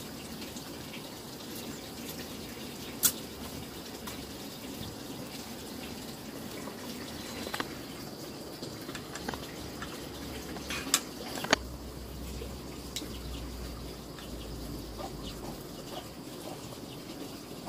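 Water running steadily, with a few sharp clicks and knocks.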